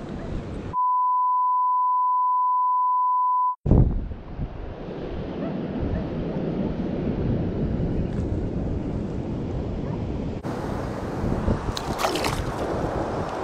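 A steady one-pitch censor bleep, held for about three seconds about a second in, blanks out the sound entirely while it masks swearing. A brief sharp knock as the sound comes back, then steady wind buffeting the microphone over lapping sea water.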